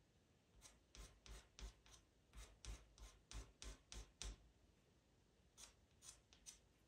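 Faint scratching of a pastel pencil tip on PastelMat paper, drawing short fur strokes: a quick run of about a dozen strokes, a pause, then a few more near the end.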